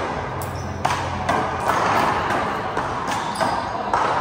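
Handball rally: a rubber handball hit by hand and slapping off the wall and floor, a string of sharp smacks about every half second.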